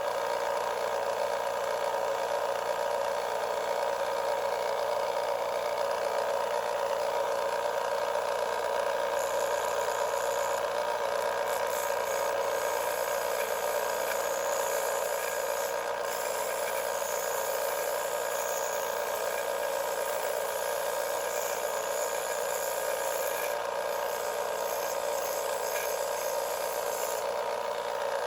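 A small power tool runs steadily, grinding down the cut end of a metal screw. A brighter hiss of metal on the abrasive runs through most of the middle stretch.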